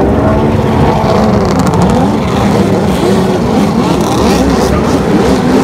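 A pack of racing jet skis accelerating hard away from a water start, many engines revving at once, their pitches rising and falling over one another.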